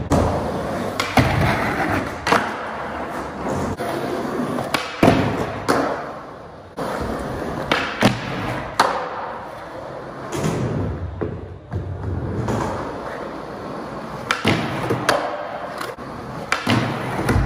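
Skateboard wheels rolling on a concrete floor, broken by repeated sharp clacks of the board popping and landing, and the trucks grinding along the metal-edged edge of a ledge.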